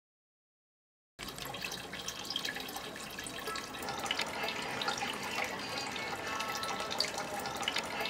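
Silence for about the first second, then water running and dripping, with many small splashes and drops throughout.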